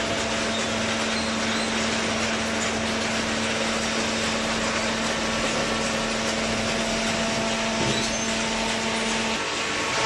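Automatic hydraulic waste-paper baler running: a steady machine noise with a constant hum that cuts out just before the end.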